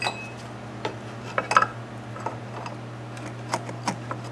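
Irregular light metallic clicks and taps from a valve being lapped into the cylinder head of a Stover CT-2 hit-and-miss engine, the valve lifted and set back down on its seat in grinding compound. A steady low hum runs underneath.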